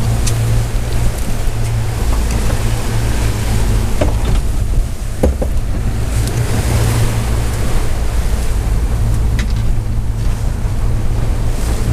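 A boat's engine runs steadily at trolling speed with a low hum under the rush of wake water and wind on the microphone. A few light clicks come from lures and tackle being handled.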